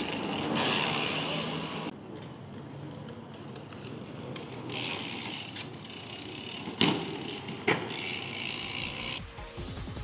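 Ghost SL AMR full-suspension mountain bike being ridden: the rear hub's freewheel buzzes and clicks as it coasts over a steady rolling noise. Two sharp knocks a little under a second apart come just past the middle.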